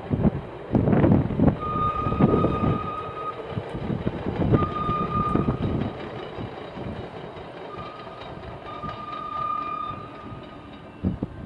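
CTA rail-transit train running past, with a steady high-pitched tone that comes three times for a second or two each. Loud gusts of wind on the microphone in the first few seconds.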